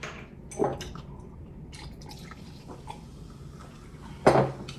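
Small, wet eating and drinking sounds at a table: sipping and swallowing. About four seconds in comes one louder, brief sound, such as a glass set down on the table.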